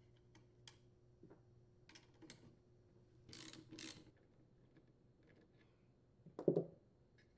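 Faint clicks and scraping of an 8mm socket being fitted to and turned on the muffler mounting nuts of a Honda GX25 four-stroke engine, with one duller, louder knock near the end.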